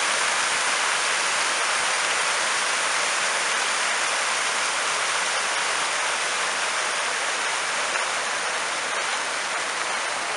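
Many jets of a large fountain splashing down onto its pool: a steady rush of falling water.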